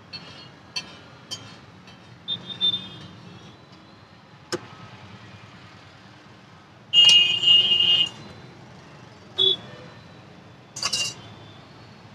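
Steel spoon clicking and scraping against a steel serving plate and a foil tray as chaat is served, over a low steady street background. A little past halfway a loud, harsh, high-pitched sound lasts about a second, with two shorter bursts after it.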